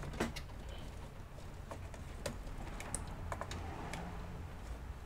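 Power supply cables and their plastic connectors being handled and pushed into place inside a PC case: a scattered run of light clicks and knocks over a low steady hum.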